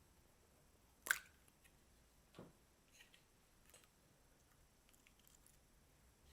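Slime being squished and pressed by hand: a sharp pop about a second in, a softer squelch a little over a second later, then a few faint sticky clicks.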